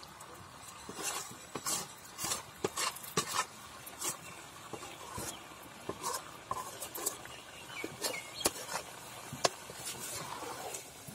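A large metal ladle stirring thick pork masala in a two-handled kadai, with irregular clinks and scrapes of the ladle against the pan.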